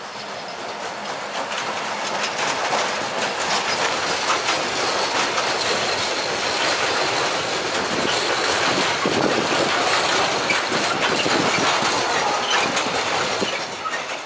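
Freight train of tank wagons hauled by an ÖBB diesel locomotive passing close by: wheels rumbling and clattering over the rails, building up over the first couple of seconds and staying loud. The sound cuts off suddenly at the very end.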